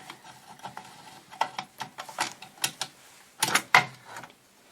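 Irregular light clicks and taps of small hard parts being handled on a workbench, with two sharper knocks close together about three and a half seconds in.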